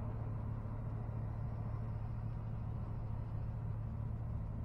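Vehicle engine idling steadily, heard from inside the cab as an even low hum.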